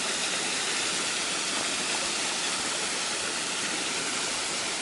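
Waterfall: falling water rushing as a steady, even hiss.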